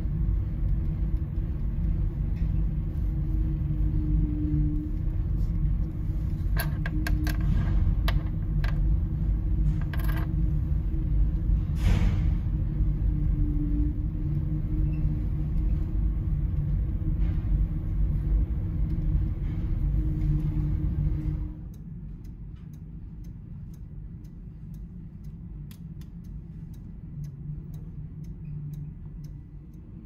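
Low, steady hum of running machinery in a ship's machinery space, with a few sharp clicks and taps a quarter to two-fifths of the way in. About two-thirds of the way through, the loud hum cuts off suddenly, leaving a quieter background hum.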